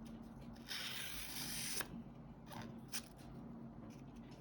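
Sharpened pocket knife blade slicing through a sheet of paper: a soft hiss lasting about a second, followed by a few light paper rustles and ticks.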